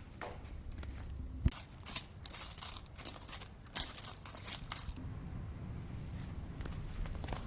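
Small metal objects jingling and clinking in a quick run of sharp rattles lasting a few seconds, then stopping.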